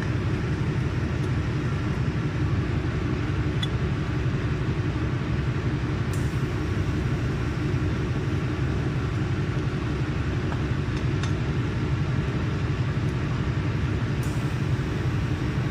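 Steady low machine hum from running workshop equipment, with a few faint light clicks of stainless steel sheets being handled.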